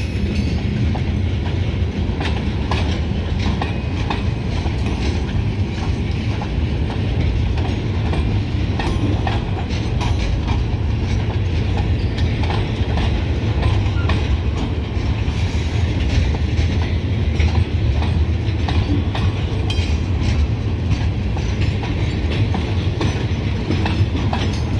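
Freight cars loaded with pulpwood logs rolling past on the track: a steady low rumble of wheels on rail, dotted with sharp clicks and clanks.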